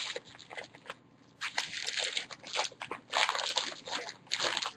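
Trading-card pack wrapper crinkling and tearing in irregular bursts as a pack is opened and the cards are handled, starting about a second and a half in.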